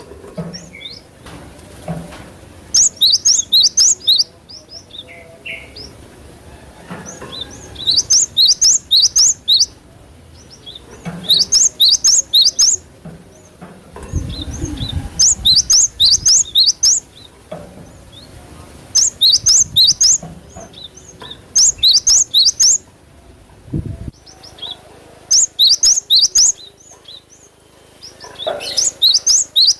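Cinereous tit (gelatik batu) singing: bursts of rapid, high chirping notes, each burst a second or two long, repeated every few seconds. A low rumble comes in about halfway through, and a short thud follows near the end.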